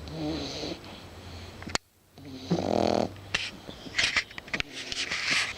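French bulldog puppy snoring in its sleep: a few pitched snores, broken by a sharp click and a brief gap about two seconds in, then breathier, noisier breaths with small clicks near the end.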